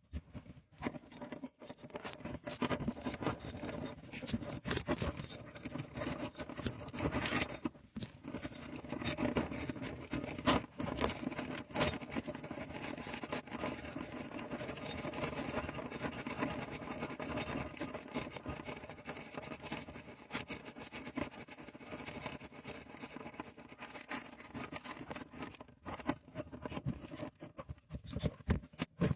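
Hand work on a bathroom faucet: a run of scraping, clicking and knocking as tools and fittings are handled, with sharp knocks about 7, 10½ and 12 seconds in.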